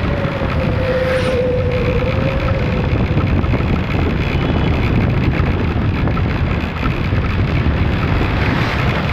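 Wind buffeting the microphone over engine and road noise from a vehicle travelling along a road, steady and rumbling, with a faint steady whine over the first two seconds or so.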